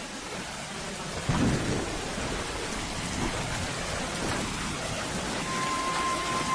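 Steady rain falling, with a sudden clap of thunder about a second in that rolls and rumbles for a few seconds. Near the end a single held high musical note comes in.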